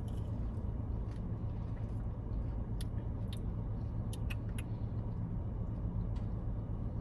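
Steady low hum of a car's interior with the engine idling, heard inside the cabin. A few small sharp clicks sound between about three and four and a half seconds in.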